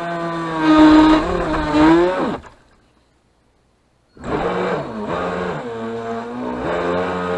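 Cheap RC speedboat's motor heard from on board, a steady whine that wavers and swells in pitch, then slides down and cuts out to dead silence about two and a half seconds in. It comes back about a second and a half later, wavering as the boat turns, and settles into a steady whine again.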